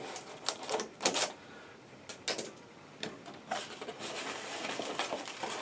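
Scissors slitting the packing tape on a cardboard box in a few quick, sharp strokes, followed by cardboard scraping and rustling as the box flaps are pulled open.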